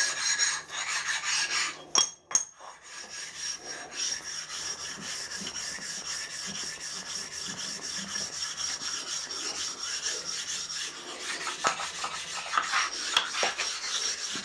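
A flat stone rubbed back and forth over a milling machine's steel-slotted work table, a steady scraping rasp that takes off small raised burrs and ding marks. It pauses briefly about two seconds in.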